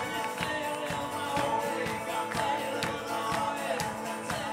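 Live band playing a song: a man sings over strummed acoustic guitar, with drums keeping a steady beat.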